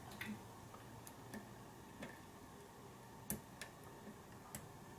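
Faint, irregular metallic clicks of a hook pick and tension wrench working the pins of a pin-tumbler lock cylinder, about six small ticks spread unevenly, the loudest a little past the middle.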